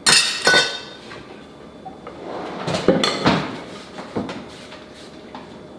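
Kitchen dishes and metal utensils clinking and knocking as they are handled: several separate knocks with a brief ring, two close together at the start and two more around the middle.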